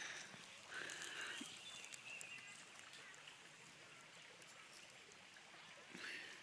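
Faint outdoor ambience: a low, even hiss of a small stream, with a few brief faint high chirps in the first two seconds.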